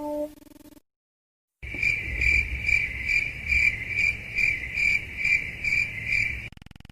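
Cricket chirping sound effect: a steady run of evenly spaced high chirps, about two and a half a second, starting after a short silence and cutting off abruptly. It is the stock "crickets" effect used to mark an awkward silence.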